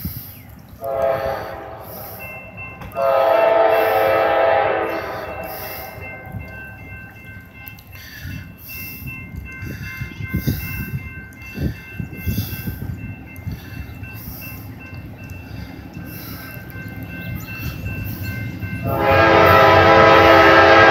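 Norfolk Southern diesel locomotive's air horn sounding for a grade crossing as the train approaches: a short blast about a second in, a longer one at about three seconds, then a long loud blast starting near the end.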